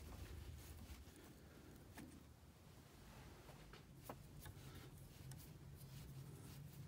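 Near silence: a low room hum with a few faint clicks as small metal parts are handled at the lathe.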